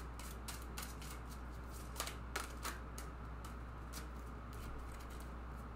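A deck of oracle cards being shuffled by hand, giving soft, irregular card clicks and flicks.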